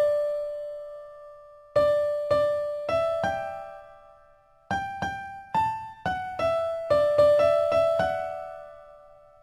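Background music: a melody of single struck notes, each ringing and fading, played in short phrases with pauses between them.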